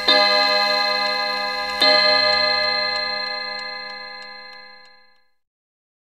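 Mantel clock striking: two ringing strokes just under two seconds apart. The second fades away over about three seconds while the clock's steady tick shows through, gone a little after five seconds in.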